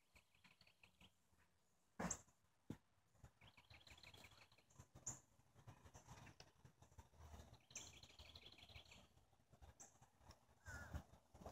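Near silence outdoors, with three short trills of rapid, high chirps, each lasting about a second, and a couple of soft knocks near the start.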